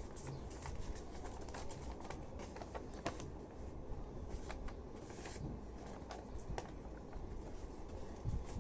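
A sheet of A4 paper being handled and folded: irregular crinkles and crisp creasing clicks.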